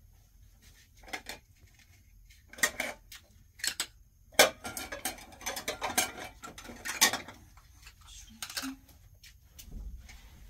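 Irregular knocks and clatter of hard objects being handled, a few scattered strokes at first, then a dense run of them through the middle.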